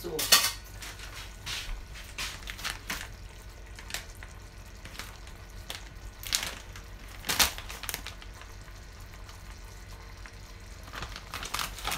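Cream sauce simmering in a non-stick frying pan, bubbling with scattered soft pops and crackles. The sharpest pops come just after the start and about two-thirds of the way through.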